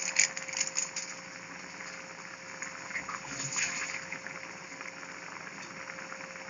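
A pan of papaitan broth boiling: bubbling and popping over a steady hiss, busiest in the first second and again about three seconds in.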